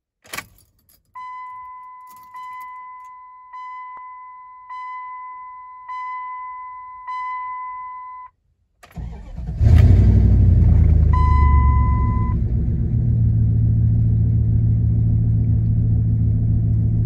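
A click, then a dash warning chime dings six times, about once every 1.2 seconds, with the ignition on. About nine seconds in, the 1998 Dodge Ram 1500's 318 V8 cranks briefly, starts and settles into a steady idle through its repaired exhaust, with one more chime shortly after it catches.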